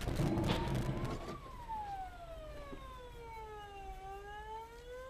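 Police car siren wailing: a slow rise in pitch to a peak about a second in, a long fall, then rising again near the end. A louder burst of noise accompanies the first second.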